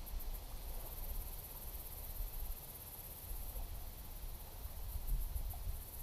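A steady, high-pitched insect chorus over a low rumble.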